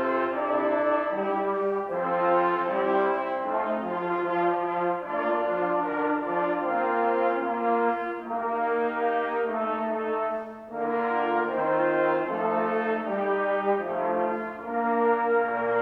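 Organ playing a slow piece in held chords, the notes sustained at an even level over a moving bass line, with a brief gap between phrases about eleven seconds in.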